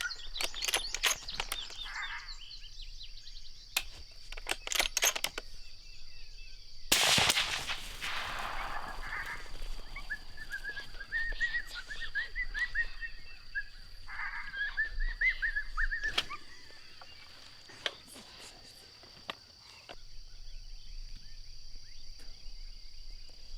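A single gunshot about seven seconds in, sharp and loud with a long fading echo. Before and after it come stretches of high warbling cries, and a steady high insect drone runs underneath.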